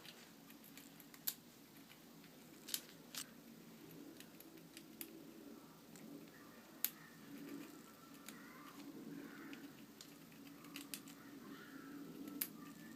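Squirrel hiccuping: faint, sharp clicks, about seven of them, at irregular intervals of a second or two.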